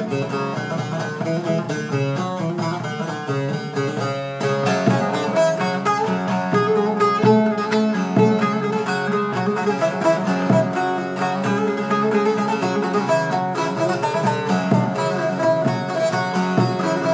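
Instrumental music led by a plucked string instrument, with no singing; it grows fuller and louder about four and a half seconds in.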